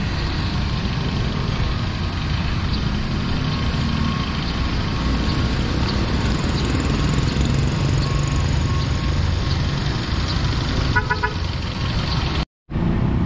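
Street traffic with a steady engine rumble from jeepneys and motorcycle tricycles. A vehicle horn gives a short burst of toots about eleven seconds in, and the sound cuts out completely for a moment near the end.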